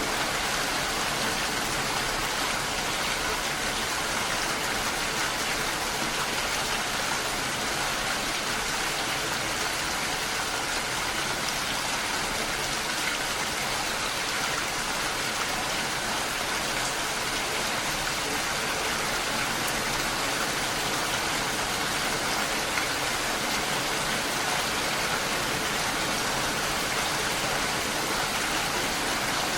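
Steady rain falling on a lake, a dense, even hiss of countless drops on water.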